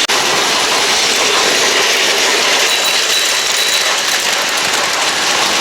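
Battery-powered Plarail toy train running on plastic track: a steady whirring of its small motor and gearbox with the wheels rattling along the rails.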